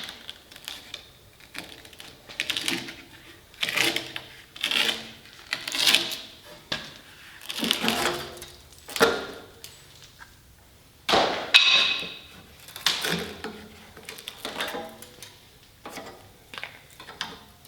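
A string of short clanks, rattles and scrapes of metal parts and tools being handled, roughly one a second, some with a brief metallic ring.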